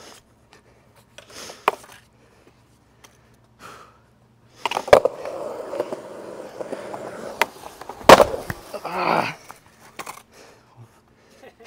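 Skateboard on concrete: a sharp snap as it sets off, then the wheels rolling steadily for about three seconds. About eight seconds in comes a loud crack, the loudest sound, followed by a short scrape and a few clattering knocks as the trick fails and the board gets away from the rider.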